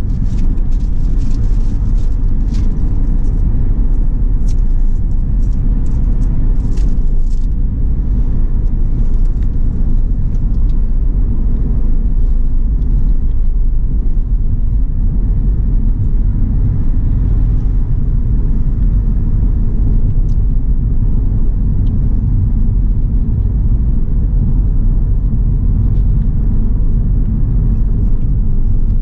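Steady low rumble of a Hyundai car driving at highway speed, heard from inside the cabin. A few light clicks come in the first several seconds.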